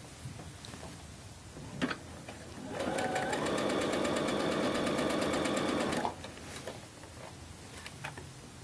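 Symphony sewing machine stitching a shoulder seam through three layers of shirt cotton, with a fast, even rattle of the needle for about three seconds: it speeds up, runs steadily, then stops abruptly. A light click comes shortly before it starts.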